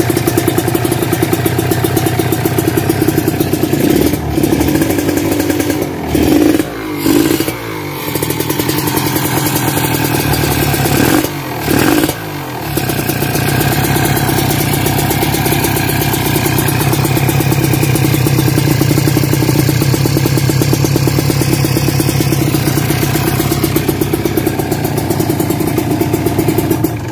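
Kawasaki Ninja RR 150 two-stroke single-cylinder engine, through a CMS exhaust, running hard and being revved. The throttle drops off and picks up again several times in the first half, then it holds a steady high note.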